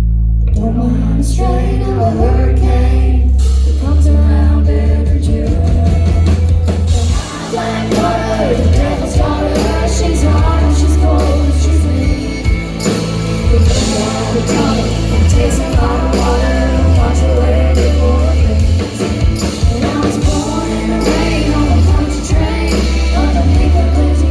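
Country band playing live, with bass, guitar and singing; the sound fills out with sharp percussive hits from about seven seconds in.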